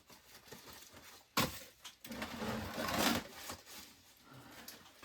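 Rustling and handling noise as items are taken out of a box, with a sharp knock about one and a half seconds in and a longer stretch of rustling a little later.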